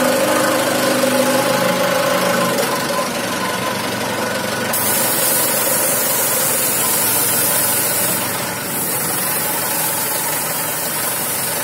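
A self-loading concrete mixer running steadily with its engine going. A hiss grows stronger about five seconds in.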